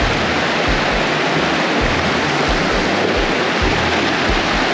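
Fast mountain stream rushing over rocks: a loud, steady rush of white water.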